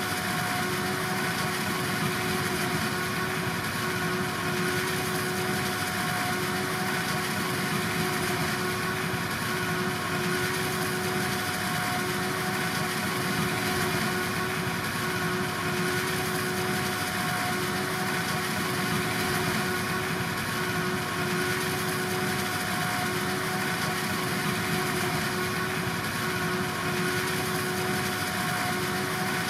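Silage harvesting machinery running steadily: an engine with a constant high-pitched whine over it, holding the same pitch and level throughout.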